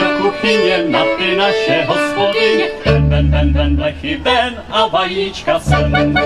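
Live Czech folk band: fiddles playing a lively tune with a man singing. Low bass notes come in about three seconds in.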